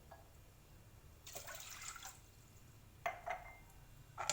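Water poured from a glass into a pot: a pour of about a second, then a shorter splash of a second pour a little later.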